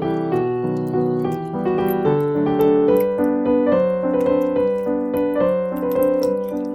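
Background piano music: a melody over chords, the notes changing a few times a second.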